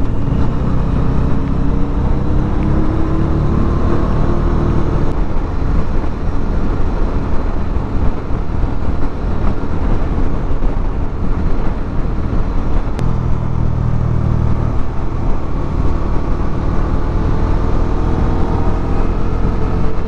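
Motorcycle engine running on the road with heavy wind rush on the microphone; the engine note rises and falls gently as the throttle changes.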